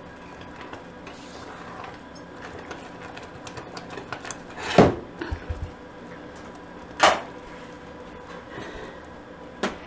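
A spatula stirring and scraping thick fudge in a saucepan, with the pan and utensil knocking a few times: a sharp knock about five seconds in, another about two seconds later, and a smaller one near the end.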